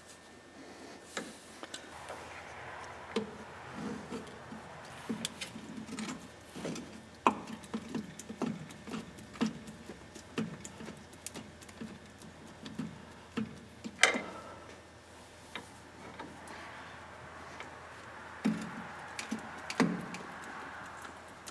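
Irregular metallic clicks and taps of hand tools working the castle nut and cotter pin on a truck's steering drag link, with one sharper knock about two-thirds of the way through.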